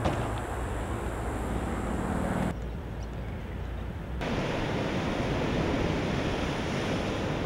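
Ocean surf washing with wind on the microphone, an even rushing noise that turns duller and a little quieter for a stretch in the middle, from about two and a half to four seconds in.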